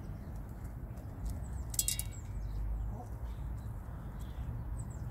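Aseel chickens feeding from a metal bowl outdoors: a steady low rumble, a few faint pecking ticks, and one short high-pitched chirp about two seconds in.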